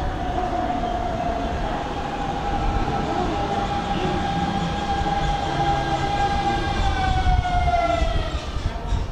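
Hanshin 5500-series electric train arriving at a station platform: its traction motors give a steady whine that falls in pitch near the end as the train slows, over rising wheel-on-rail rumble.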